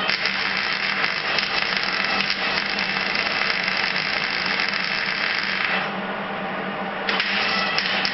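MIG welder arcing on thin sheet steel: a steady crackling fizz as a bead is run, breaking off after about six seconds and starting again about a second later, over a steady low hum.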